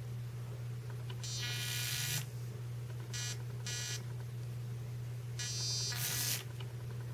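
Small electric motor of a 1/24 Redcat Sumo RC crawler buzzing as it spins the rebuilt transfer case gears in four short bursts: a run of about a second, two quick blips, then another run of about a second. A steady low hum runs underneath.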